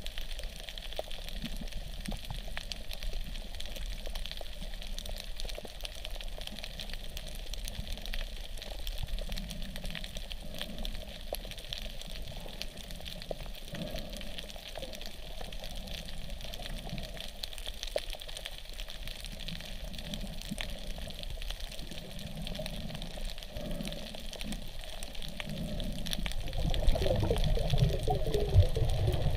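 Underwater reef ambience heard through a submerged camera: a steady hiss with constant fine crackling, and irregular low water surges that grow louder over the last few seconds.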